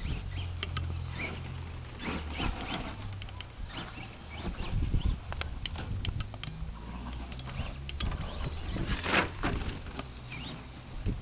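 ECX Amp MT RC monster truck's brushed electric motor, running on a 3S LiPo, whirring in bursts as the throttle is worked, with the tyres scrabbling over dirt and grass and scattered small clicks.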